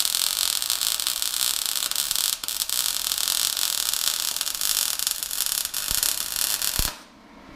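Welding arc hissing and crackling as a steel mounting plate is welded. It breaks off briefly about two seconds in, then stops abruptly near the end.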